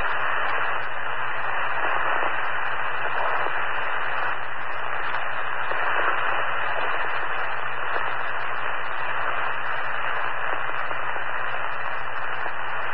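Steady rushing hiss over a fire department radio channel, with no voice: a radio microphone stuck open, keeping the channel keyed.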